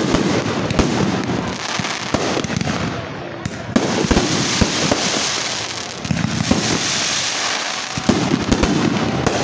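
Fireworks display: aerial shells bursting overhead in a rapid, irregular series of sharp bangs, with a thicker hissing stretch of sound around the middle.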